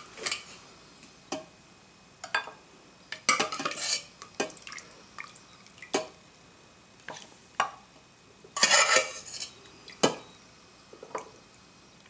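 A metal spoon clinking and scraping against a stainless steel Hawkins pressure cooker and a ceramic bowl as pieces of lamb curry are served out. The clinks come one by one, with a louder cluster of scraping about nine seconds in.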